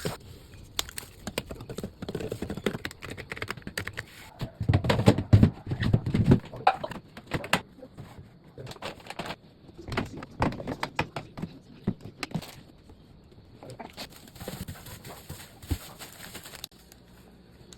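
Irregular knocks, clicks and clatter of household items being handled and set down, with a denser run of low thumps about five seconds in.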